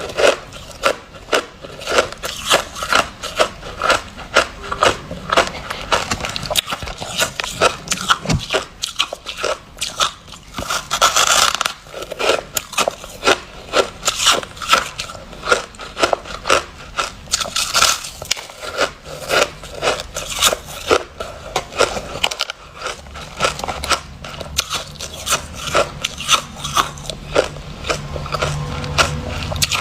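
Close-up crunching of white snow ice being bitten and chewed: a steady run of crisp, sharp crunches, roughly one or two a second, with some grinding between bites.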